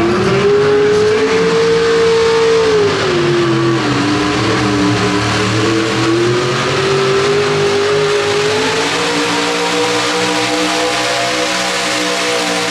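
Pro stock mini pulling truck's engine, running through open exhaust stacks, revving as it takes the sled: the revs climb and hold, fall back about three seconds in, climb again, then settle into a steady high-rpm pull under load for the last few seconds.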